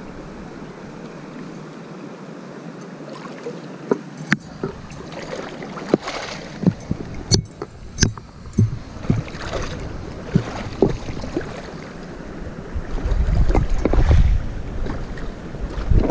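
River water running, with irregular sharp knocks and splashes starting about four seconds in, and a low rumble near the end.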